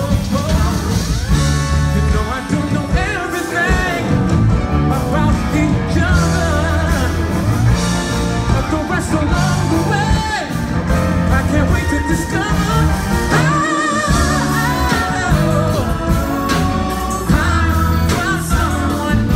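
Live R&B band performance: a male lead vocalist singing a melody with vibrato over the band's bass line and drums.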